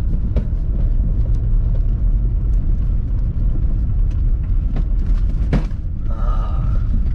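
Vehicle driving on a snow-covered road, heard from inside the cab: a steady low rumble with a few sharp knocks over the packed snow, and a brief wavering squeak about six seconds in.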